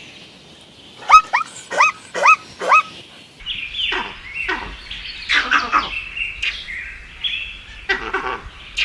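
Animal calls: about five short, sharp calls in quick succession, each rising and falling in pitch. Then, from about three seconds in, a busier mix of overlapping chirping and squawking calls from several animals.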